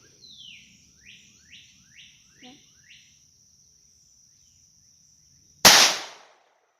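A single sharp shot from a Smith & Wesson M&P22 Compact .22 LR pistol near the end, dying away quickly; it is the loudest sound by far. Before it, a bird gives a quick series of falling chirps over a steady high insect trill.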